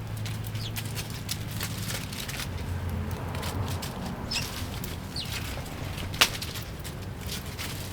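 A few short, high sparrow chirps among scattered light clicks and ticks, over a low steady hum; one sharper click about six seconds in.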